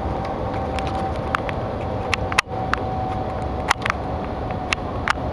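Steady rushing cabin noise inside the Shanghai Maglev travelling at speed, with a steady high hum. Scattered sharp clicks and a brief dropout about two and a half seconds in.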